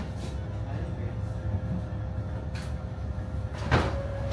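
Low, steady rumble of a passenger ferry's engines heard on board, with a faint steady hum over it. A single sharp knock comes about three and a half seconds in.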